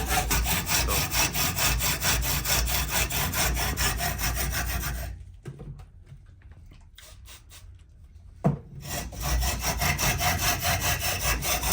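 A hand saw cutting through a bicycle fork's steerer tube in quick, even back-and-forth strokes. It stops for about four seconds, with a single knock in the pause, then starts again near the end.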